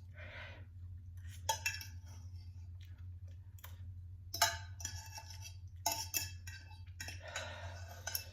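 An eating utensil clinking against a pot, a few sharp clinks that ring briefly, with softer scraping noise between them and a steady low hum underneath.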